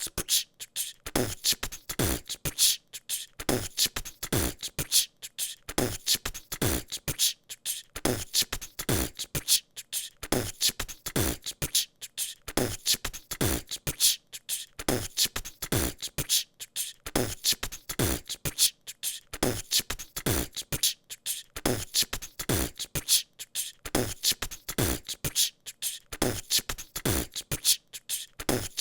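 A person beatboxing a steady, fast groove of mouth-made kick drums, snares and hi-hat hisses. The low kicks drop in pitch, and the sharp clicks and hisses come several times a second.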